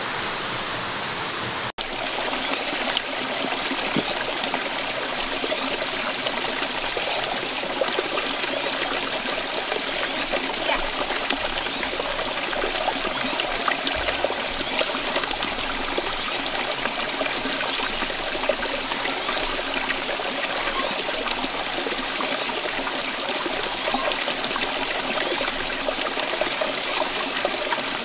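Shallow stream running and trickling over rocks, a steady rush of water, broken by a split-second gap about two seconds in.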